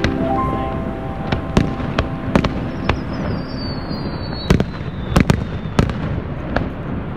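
Fireworks display: aerial shells bursting in a rapid, irregular string of sharp bangs over a steady rumble. A thin whistle falls slowly in pitch from about three seconds in.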